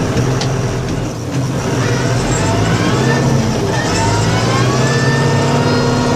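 Vehicle engine running steadily, revving up twice with a rising pitch.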